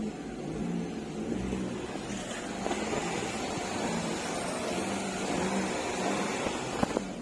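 Maruti Suzuki Alto's three-cylinder petrol engine being revved on the accelerator, heard from inside the cabin with the windows down: a low steady engine hum, joined about two seconds in by a louder broad rush. Two sharp clicks come just before the sound cuts off.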